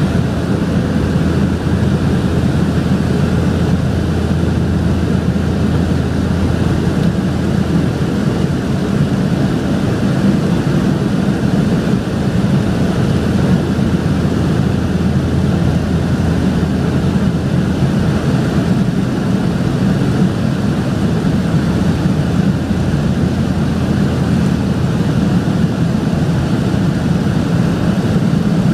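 Loud, steady drone of a de Havilland Canada DHC-6-300 Twin Otter's two turboprop engines and propellers in flight, heard inside the passenger cabin, with most of its weight low down.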